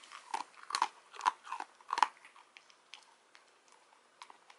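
Dachshund crunching dry kibble as it eats from a hand: a quick run of sharp crunches over the first two seconds, then only a few faint clicks.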